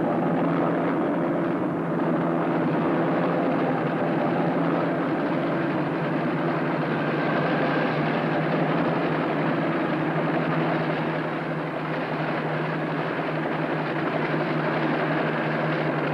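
Steady drone of an aircraft engine in flight: a constant low hum with overtones that does not change.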